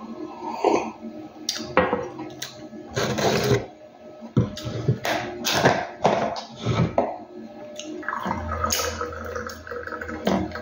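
Knocks and clatter of a glass and tableware being handled, then coffee poured from a flask into a glass for about two seconds near the end.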